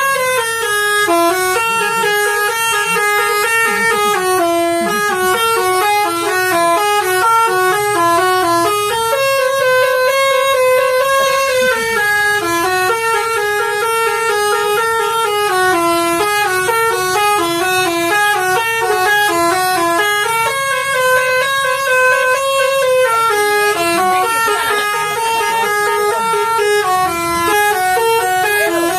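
Indonesian bus 'telolet' multi-tone horn playing a continuous melody, the notes stepping quickly up and down, with a phrase that recurs about every ten seconds.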